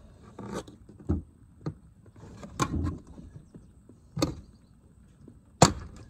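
Chevy Impala's plastic lower dash trim panel being pried off with a plastic trim tool: a string of sharp plastic clicks and snaps as its retaining tabs pop loose, the loudest one near the end.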